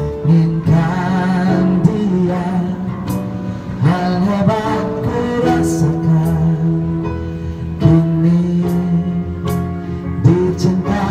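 Live band music: a singer over electric keyboard and accompanying instruments, with sustained chords and a wavering vocal line.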